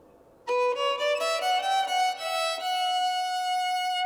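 Background music: a violin comes in about half a second in with a phrase that climbs in short steps, then holds one long note.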